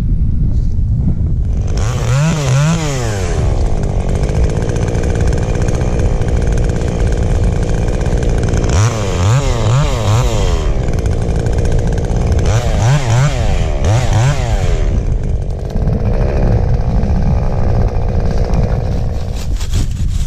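Stihl MS 150 two-stroke top-handle chainsaw running, revved up and down in three bursts with steadier running in between.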